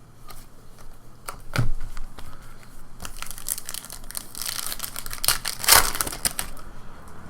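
Foil trading-card pack wrapper crinkling and tearing as a pack is opened. There is a sharp click about a second and a half in, and the crinkling is densest and loudest in the second half.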